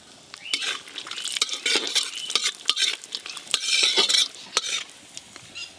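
Metal spatula scraping and stirring cashews and raisins in a metal wok, in repeated irregular strokes with a light sizzle as they fry in ghee.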